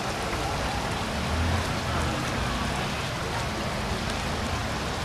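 Steady rush of shallow river water running, with splashing from feet wading through it.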